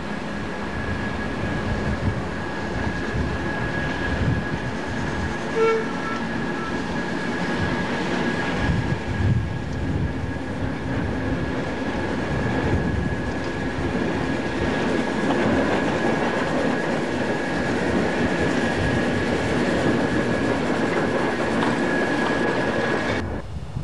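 BR Class 08 diesel shunter's engine running as the locomotive approaches and passes close by, growing louder in the second half. A short toot is heard about six seconds in.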